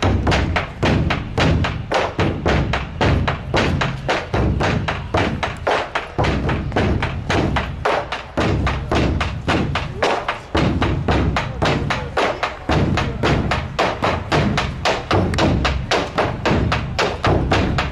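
Large Chinese barrel drums on wooden stands, beaten with sticks in a steady fast rhythm of about four strokes a second.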